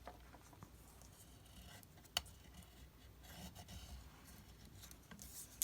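Faint rustling and rubbing of paper and cardstock being handled, with one sharp click about two seconds in.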